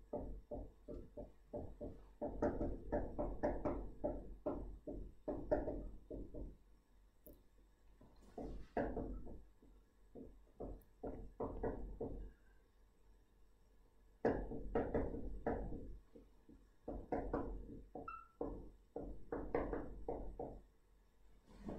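Bursts of quick, irregular light taps and knocks, several a second, in three runs with short pauses between: the sound of writing out a line of text at a desk.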